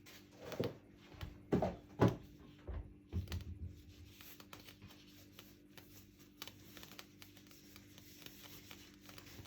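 A few soft knocks, bumps and rustles of kitchen items being handled in the first few seconds, then only a faint steady low hum.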